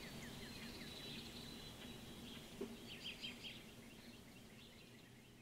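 Faint bird chirping in quick runs of short high calls, gradually fading out.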